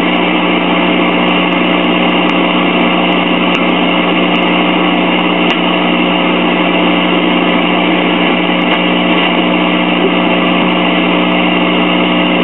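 Steady static hiss with a low hum from a signal tracer's speaker, its probe on the base of the audio output transistor of a transistor radio while the radio's AM dial is tuned across the band with no station yet. The hum is the tracer's own and normal; the static shows signal reaching the output transistor's base.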